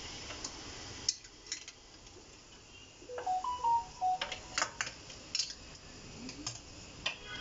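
Sharp metallic clinks and knocks of a steel steamer plate and pot-holder tongs as the plate of steamed modak is gripped and lifted off the pot. A short series of electronic beeps at stepped pitches comes a little after the three-second mark.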